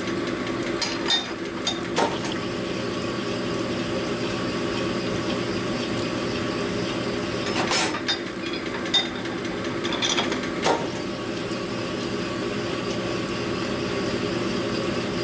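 Power honing machine running steadily with a constant hum while the hone cuts metal engine parts, with a few sharp metallic clicks.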